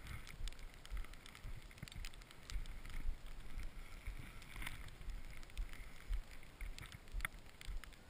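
Wind buffeting the camera's microphone in uneven low rumbles, with scattered light clicks and rustles from the skier's gear.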